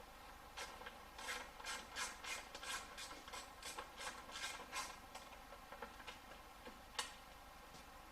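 Socket ratchet rasping on its back-strokes while loosening a small bolt, about two to three strokes a second for several seconds. A single sharp click follows near the end.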